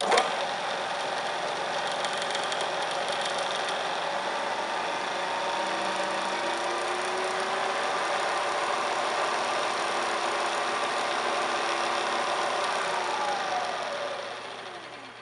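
MSC 10" x 54" vertical milling machine's spindle motor and head starting up abruptly and running steadily with a whirring drive. Near the end it is switched off and coasts down, its pitch falling as the spindle slows.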